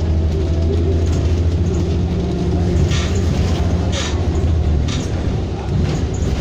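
Inside a moving city bus: a low, steady engine rumble with road noise, and two short rattles about three and four seconds in. The deep drone eases off about five seconds in.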